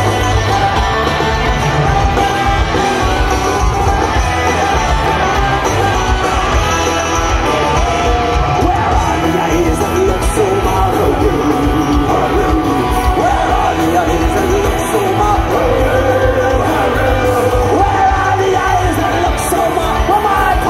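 Celtic punk band playing loud rock music live, with singing over electric guitars and a heavy low end.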